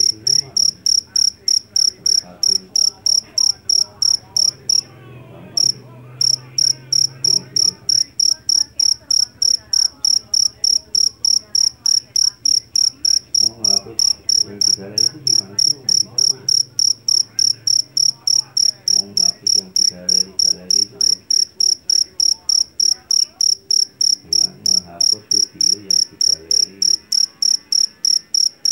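Jangkrik jeliteng, the Javanese black field cricket, chirping shrilly in a steady, even rhythm of about three chirps a second, with one short break about five seconds in.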